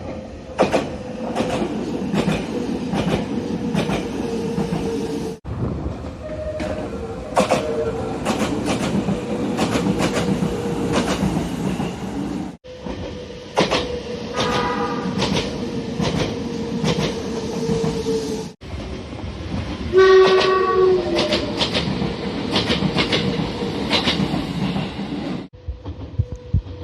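Nagano Electric Railway express trains running, with wheels clicking over rail joints under a steady whine. Short horn blasts sound in several of the clips. The recording cuts abruptly from one clip to the next every five to seven seconds.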